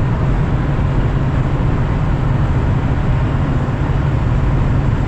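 Steady road and engine noise inside the cabin of a 2011 Chevrolet Tahoe driving along, a constant low drone with no distinct events.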